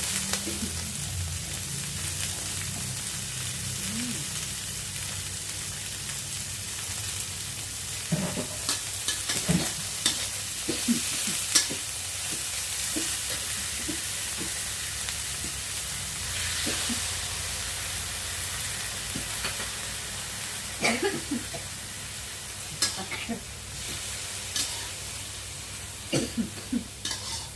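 Food sizzling steadily in a hot pan as it is stir-fried, with the spatula scraping and clicking against the pan now and then, in clusters partway through and again near the end.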